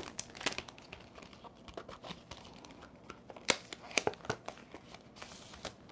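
Light handling of paper and packaging: quiet rustling with scattered soft clicks and a few sharper taps between about three and a half and four and a half seconds in.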